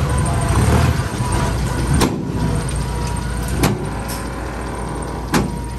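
Dump truck's diesel engine running while its tipped bed unloads soil and rocks, the low rumble heaviest in the first second, with three sharp knocks about two, three and a half, and five seconds in.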